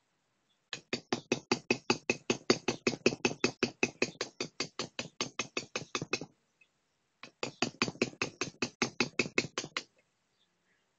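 Hand hammer tapping a small steel chisel into a block of Thymiana stone, carving a relief: quick, even blows at about seven a second. A long run of about five seconds, a short pause, then a second run of about two and a half seconds.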